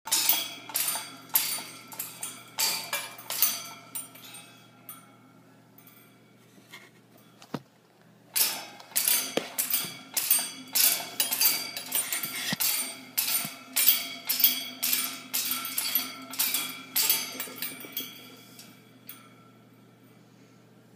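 Pet parrot playing in its wire cage, making quick metallic clinks and clanks, about two or three a second. There are two runs: one over the first four seconds, and a longer one from about eight to eighteen seconds.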